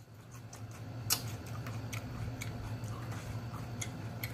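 Close-miked chewing with the mouth closed: soft, irregular wet mouth clicks and smacks, about a dozen, over a low steady hum.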